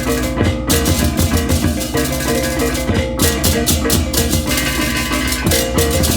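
Balinese baleganjur gamelan playing loudly: dense, fast interlocking strokes of ceng-ceng cymbals over kendang drums, with a repeating metallic figure on tuned gong-chimes and the low ring of large gongs underneath.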